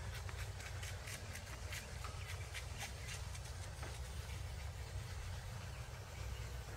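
Footsteps crunching over dry twigs and burnt forest debris, a run of sharp snaps and crackles over the first few seconds that thins out, over a steady low rumble.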